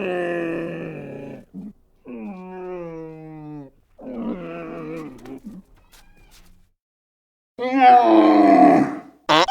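A farm animal calling: four drawn-out pitched calls of one to two seconds each, one of them wavering. Near the end comes a short, much higher call.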